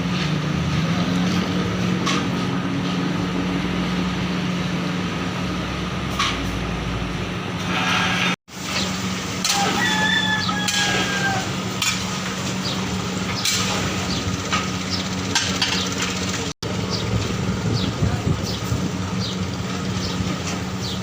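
Steady background roar with a low hum, broken by occasional sharp metallic clinks and, about ten seconds in, a short pitched tone. The sound cuts out abruptly twice for an instant.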